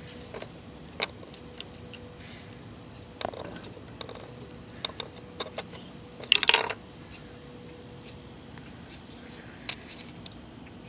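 Small metal lawn mower carburetor parts being handled: scattered light clicks and taps, with a short louder clatter about six seconds in.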